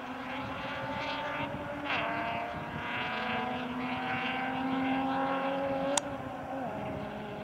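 Distant rally car accelerating along a gravel stage, its engine note climbing and dropping at each upshift, twice. There is one sharp crack about six seconds in.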